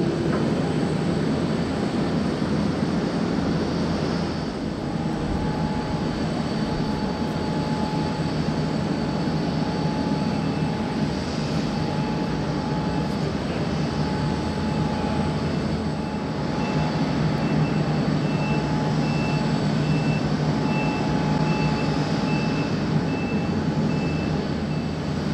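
Boeing 787-8's Rolls-Royce Trent 1000 turbofans running steadily at idle, a constant jet rush with a steady whine.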